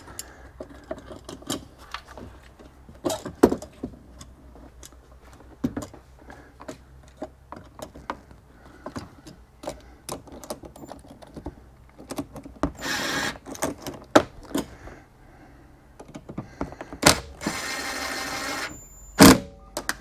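Plastic trim clips and panel pieces clicking and knocking as they are handled and pressed into place. Near the end, a cordless drill-driver runs in two short bursts to drive fasteners into the trim. A sharp knock follows the second burst.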